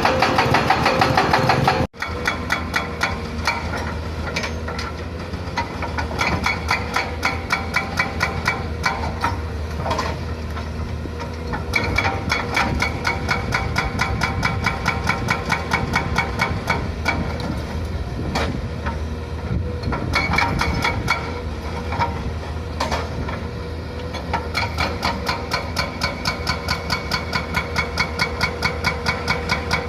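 Excavator-mounted hydraulic breaker hammering in rapid, evenly spaced blows over the steady running of the excavator's diesel engine, with a brief break about two seconds in.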